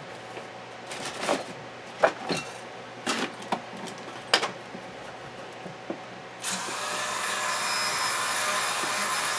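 A few sharp clicks and knocks of metal parts being handled, then about two-thirds in a Dremel rotary tool starts and runs at a steady high whir. It is being used to grind down a tight bronze sleeve bushing so it will slide onto the gearbox shaft.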